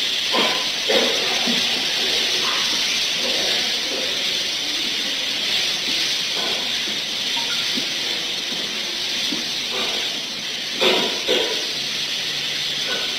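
A steady hiss of background noise, broken by a few short louder sounds: two about half a second to a second in, and two more close together near the end.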